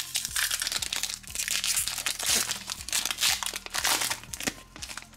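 Foil Pokémon TCG booster pack torn open by hand, its metallic wrapper crinkling and crackling as it is pulled apart, easing off near the end.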